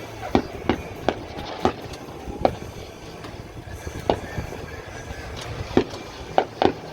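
Fireworks going off at a distance: about nine sharp bangs at irregular intervals, bunching together near the end.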